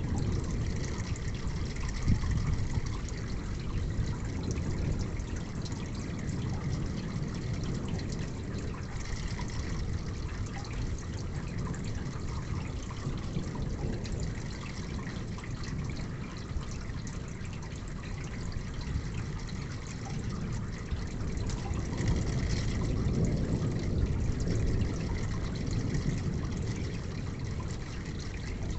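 Steady rain falling, with water trickling and dripping. A low rumble swells about three-quarters of the way through.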